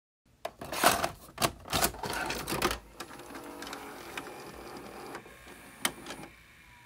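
Mechanical clicks and clunks of a VCR taking in and loading a VHS cassette. The clunks are followed by a quieter steady whir of the tape mechanism running, with one more click near the end.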